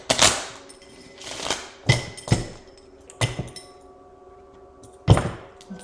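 Tarot cards being handled on a table: a handful of sharp slaps and rustles as cards are shuffled and laid down, the loudest just after the start and again near the end.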